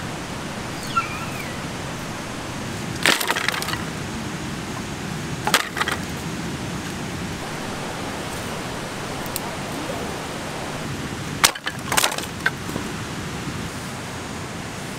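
Dry branches snapping as firewood is broken by hand, four sharp cracks, two of them close together near the end, over a steady rush of running water.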